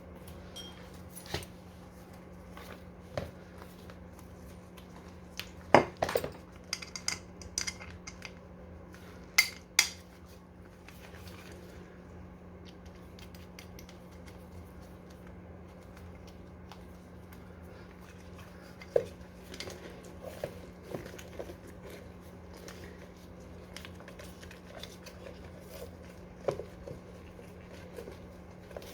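Metal tools and parts clinking and knocking, in scattered sharp clicks with a few louder clanks about six and ten seconds in, over a steady low hum.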